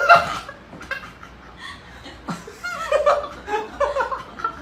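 A person laughing: a loud burst right at the start, then a series of shorter chuckles over the second half.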